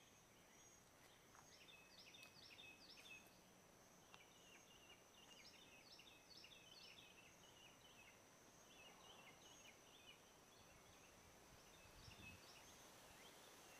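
Faint birdsong: songbirds chirping in short, quickly repeated phrases, on and off throughout.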